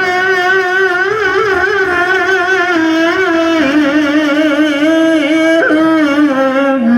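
A man's voice chanting Quran recitation in the melodic tilawah style, amplified through a microphone, holding one long ornamented phrase that wavers and slowly sinks, stepping down to a lower note near the end. The reciter describes his voice in this recitation as partly hoarse from a cough and cold.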